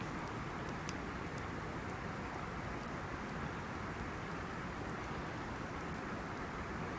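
Wood fire burning: a steady hiss with a few small crackles and pops about a second in.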